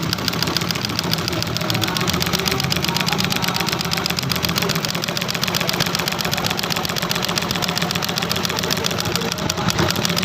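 Sewing machine stitching tarpaulin, running steadily with a fast, even clatter of needle strokes.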